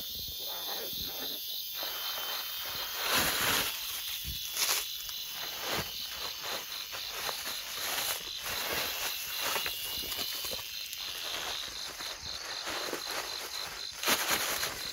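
Insects chirping steadily in a high, rapidly pulsed trill, with occasional rustling of plants and footsteps through the undergrowth.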